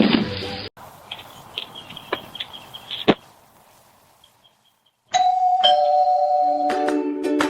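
Faint short high chirps and clicks, with a sharp click about three seconds in, then a near-quiet stretch. About five seconds in, an electronic doorbell chime sounds two held notes, and plucked ukulele-like music starts under it near the end.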